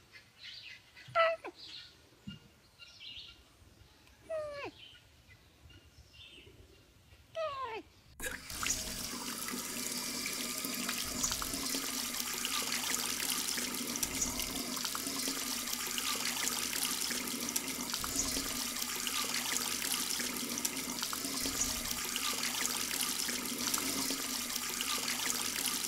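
A lynx meows three times, each a short call falling in pitch. Then, about eight seconds in, a bathroom tap starts running steadily into cupped hands over a sink, the water splashing.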